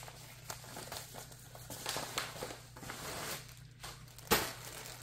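Plastic packaging crinkling and rustling as a parcel is handled and opened, with one sharp tap about four seconds in.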